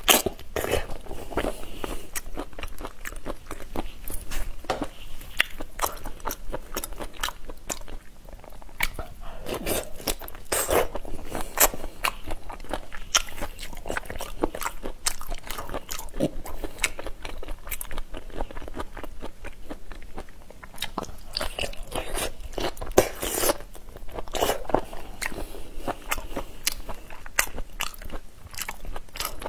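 Crunching and chewing of raw, shell-on shrimp marinated in spicy sauce, with many short, sharp crunches.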